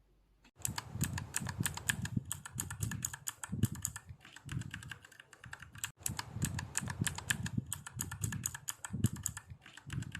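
Fast, continuous typing on a mechanical keyboard with Cherry MX-style switches: a dense run of key clicks that starts about half a second in, with a brief break near the middle.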